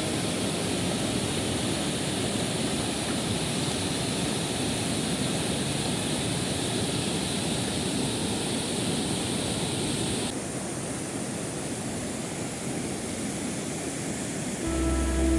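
Steady rushing of a mountain stream's white water, a continuous hiss with no distinct splashes. About ten seconds in, the sound changes abruptly and the high hiss drops away.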